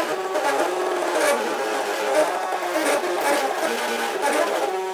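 MakerBot Cupcake CNC 3D printer's stepper motors whining while it prints, the pitch jumping up and down in steps as the build platform and print head change direction and speed.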